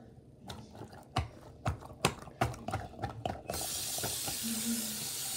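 A quick run of knocks and taps, then a bathroom sink faucet is turned on about three and a half seconds in and water runs steadily into the basin.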